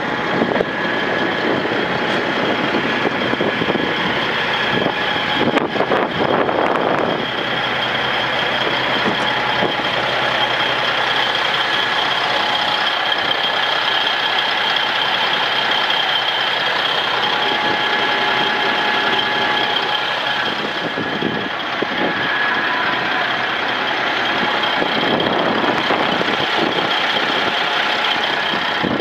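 Ford LTL9000 dump truck's Caterpillar diesel engine idling steadily, with a steady high whine over the engine sound.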